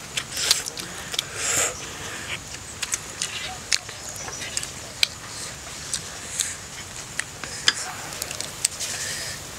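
Two people eating instant noodles: slurping strands and chewing, with many short sharp clicks and brief hissy slurps scattered throughout.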